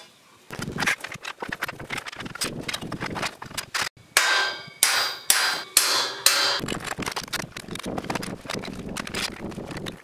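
Steel scaffold tubes and fittings clattering and knocking as they are handled, with a run of about five loud, ringing hammer blows on a steel scaffold fitting a few seconds in.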